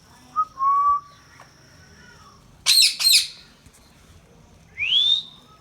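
Indian ringneck parrot giving two loud, harsh squawks about halfway through. A short steady whistled note comes about half a second in, and a rising whistle near the end.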